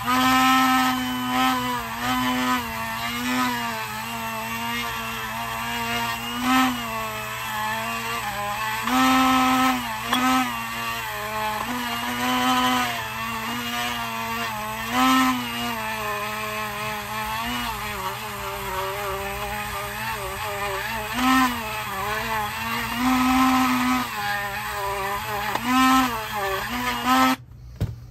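Dremel rotary tool spinning a small wire brush, cleaning out the piston-seal grooves in a motorcycle brake caliper's bores. Its steady whine wavers in pitch and loudness as the brush bears on the metal, and it cuts off about a second before the end.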